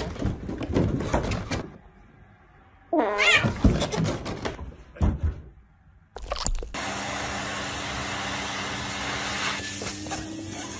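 A cat meows twice, a call that bends up and down at the start and another about three seconds in. From about six seconds a vacuum cleaner runs steadily, a hiss with a low hum.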